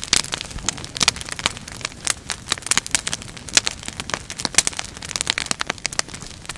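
Fire crackling: a dense, irregular run of sharp pops and snaps over a steady hiss.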